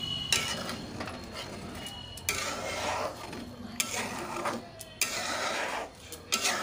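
Metal spoon stirring cooked dal in an aluminium kadai, scraping against the pan in about five strokes, with a few sharp clinks of metal on metal.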